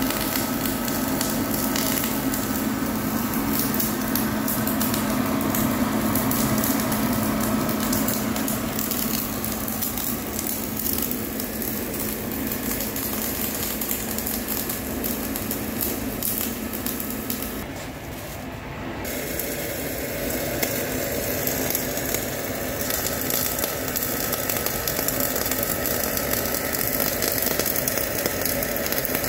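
MIG welding arc, a steady crackling sizzle, breaking off briefly a little past halfway and then resuming.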